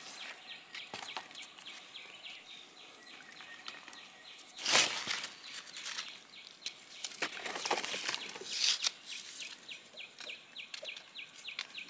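Rustling and crackling of dry leaves and brush, loudest about five seconds in and again near nine seconds, over a steady run of quick, high chirps, about three or four a second.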